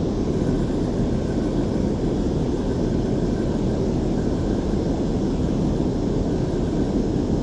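Steady, low rushing noise of water pouring over a dam spillway, unchanging throughout.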